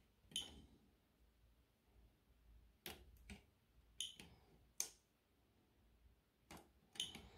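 Soldering at a battery terminal: a soldering iron and solder wire on a metal tab, giving about six faint, sharp clicks and ticks spread over several seconds, against near silence.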